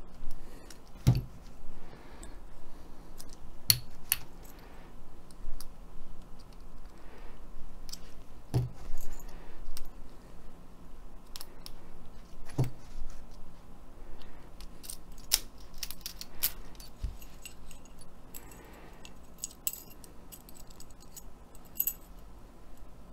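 Keys on a ring jangling and clicking as an ASSA Twin Pro key is worked in the keyway of a double euro cylinder, with scattered sharp metal clicks and a few dull handling knocks.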